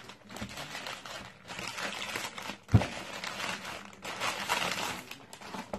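Plastic courier mailer bag crinkling and rustling as a boxed router is pulled out of it, with a single sharp thump about three seconds in.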